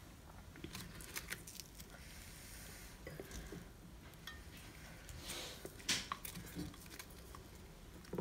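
Faint rustling and light taps as fingers handle crisp fried chilli fritters and press a loose chopped-vegetable filling into them on a plate. The louder rustle comes about five to six seconds in.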